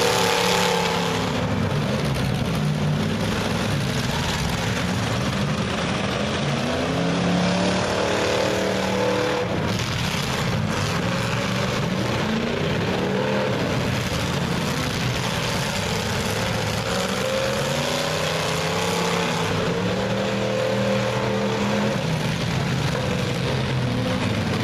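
Several race cars' engines running hard together, their pitch rising and falling over and over as the cars accelerate and lift off around the track.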